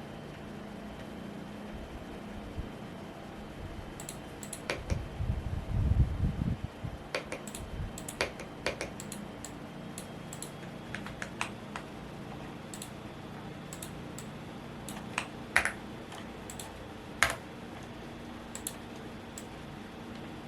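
Womier S-K71 mechanical keyboard being typed on in irregular bursts of keystrokes, starting about four seconds in, over a steady fan hum. A low rumble swells under the typing about five to seven seconds in.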